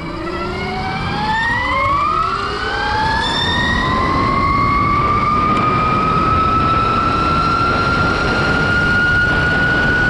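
72-volt electric dirt bike under hard acceleration: the motor's whine rises steeply in pitch over the first few seconds, then levels off and climbs only slowly as the bike nears its top speed of about 57 mph. Heavy wind rush on the microphone sits under it.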